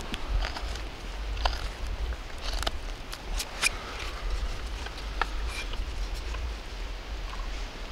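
Crook knife shaving wood out of the bowl of a carved spoon: short, irregular scraping cuts over a low steady rumble.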